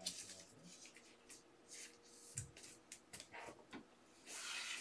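Faint rustling and light ticks of trading cards being handled and slid on a tabletop, with a somewhat longer rustle near the end.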